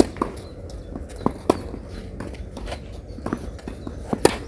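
Tennis rally on a clay court: sharp pops of the ball coming off racket strings and bouncing, the loudest about a second and a half in and just before the end, over a steady low rumble.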